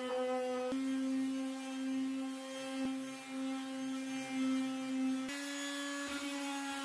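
Electric palm sander running on a wooden block: a steady motor hum that steps slightly in pitch a few times.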